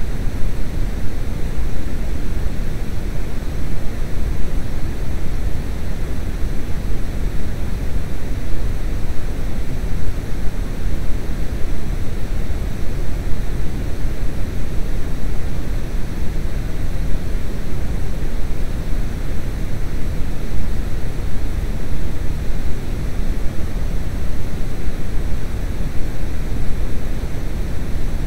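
A steady, loud rushing noise, heaviest in the low end, with no clear tone or beat.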